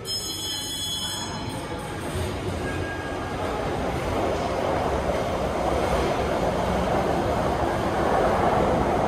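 A rail vehicle running close by: a rolling rumble that grows steadily louder, with high squealing tones in the first second and a half.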